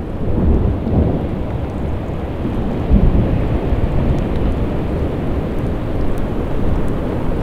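Tidewater glacier calving: ice breaking off the face and crashing into the sea, heard as a deep continuous rumble with heavier surges about a second in and again about three seconds in.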